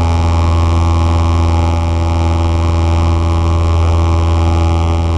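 Cessna 172 piston engine and propeller droning steadily, heard inside the cabin during the climb after take-off: a deep, even engine hum with a wash of propeller and airflow noise, unchanging throughout.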